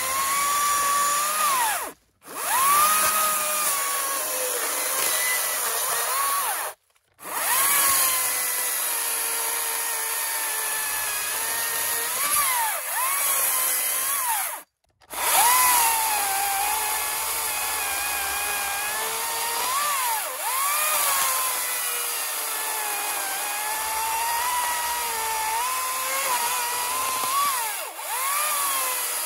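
Makita XGT 40V cordless chainsaw with an 18-inch bar cutting dead limbs: a high motor and chain whine that sags in pitch as the chain bites into the wood and climbs back as it frees up, again and again. The sound breaks off abruptly three times.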